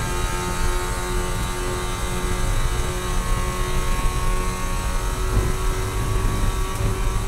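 Spec Miata's four-cylinder engine running at a steady, high pitch under load, heard from inside the race car over wind and road noise.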